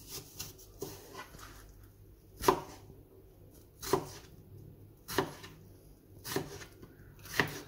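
Chef's knife dicing a peeled cucumber on a plastic cutting board: a sharp knock each time the blade goes through and meets the board, five main knocks a little over a second apart, with fainter taps in the first second.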